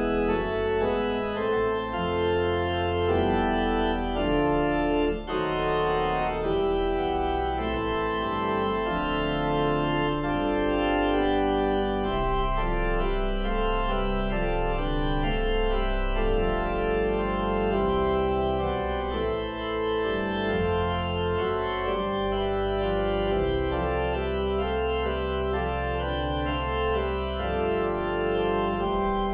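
Organ postlude: sustained chords over a slowly moving bass line, at a steady volume.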